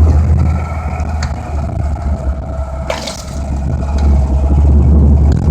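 Off-road vehicle's engine running with a heavy low rumble, easing off in the middle and building again toward the end, with a short knock about three seconds in.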